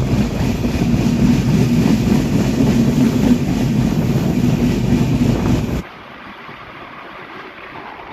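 Intercity passenger train running on broad-gauge track, heard from an open door of a moving coach: a steady rumble of wheels on rail with a low hum. About six seconds in it cuts abruptly to a much quieter, duller recording of the train running.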